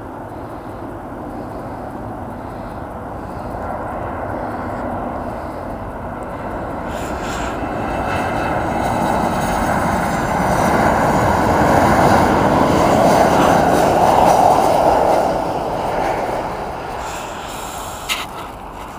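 Boeing 737-800's CFM56-7B jet engines at approach power as the airliner lands. The steady engine noise grows louder as the plane passes close by and fades as it flies on toward the runway.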